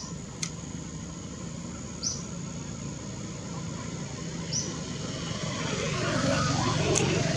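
A short high chirp repeating about every two and a half seconds over a steady low rumble, which grows louder about six seconds in; a sharp click comes just after the start and another near the end.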